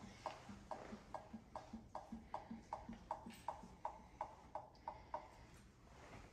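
Faint, rhythmic strokes of the hand pump on a Motive Power Bleeder being worked to pressurize break-in oil into the engine's oil system, about two to three strokes a second, stopping about five seconds in.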